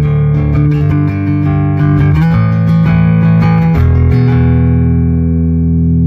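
Fender P&J bass on its precision pickup alone, played through a Traynor YBA300 all-tube bass amplifier with no drums: a run of plucked notes, then one low note left ringing for the last two seconds.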